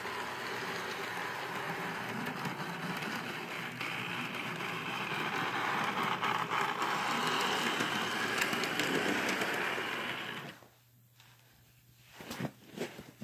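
HO scale model train running on its track: a steady whir of the small electric motor and wheel noise, louder as the train passes close, then cutting off suddenly about ten and a half seconds in. A few light clicks follow near the end.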